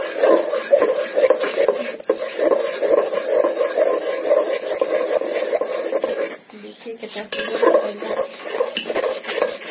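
Metal spatula stirring thick rice-flour and jaggery batter in a metal pot, scraping and knocking against the pot continuously as the flour cooks into the syrup, with a brief pause about six and a half seconds in.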